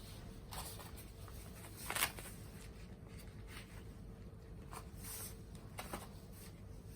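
Small wood fire crackling in a mini tabletop fire stand: a few scattered sharp pops and snaps, the loudest about two seconds in, over a faint steady hum.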